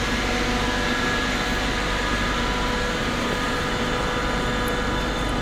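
PKP Intercity Pendolino (class ED250) electric train rolling slowly along the platform as it arrives: a steady rumble and hiss with several steady whining tones.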